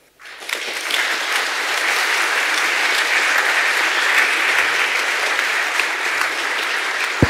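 Large audience applauding, swelling within the first second and then holding steady. A sharp knock sounds near the end.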